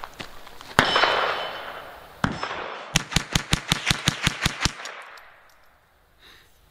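Rock Island Armory TM22 .22 LR semi-automatic rifle firing: two echoing shots about a second and a half apart, then a rapid string of about a dozen sharp, quieter cracks, roughly seven a second, that stops abruptly.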